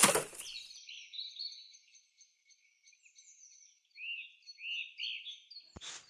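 Small birds chirping with many short high calls; from about four seconds in, a run of arching calls comes roughly half a second apart. A brief loud rush of noise at the very start is the loudest thing.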